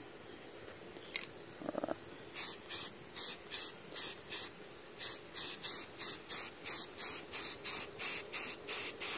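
Aerosol spray paint can sprayed in short, quick hisses, about three a second, starting about two seconds in, as paint is laid thickly onto a plastic duck decoy.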